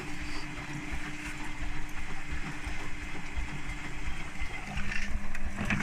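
Vestel-built washing machine running a rapid wash, its drum tumbling with an uneven rumble over a steady motor hum. The hum drops to a lower pitch about three-quarters of the way through.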